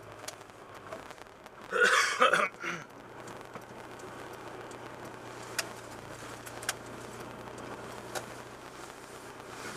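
A person coughs a few times in quick succession close to the microphone, about two seconds in. Around it are a steady low hum, a faint background haze and a few sharp clicks.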